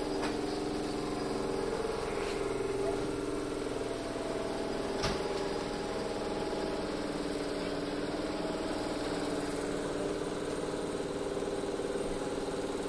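Steady multi-tone hum of a stationary Shizuoka Railway 1000 series electric train's onboard machinery running, with a single sharp click about five seconds in.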